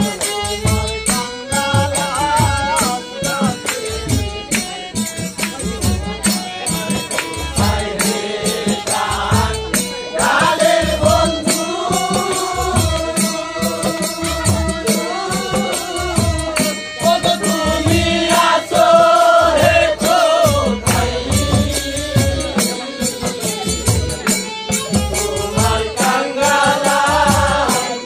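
Live Bengali bicched folk song: long sung vocal lines over a steady drum beat with jingling percussion. The singing swells about a third of the way in and again near the end.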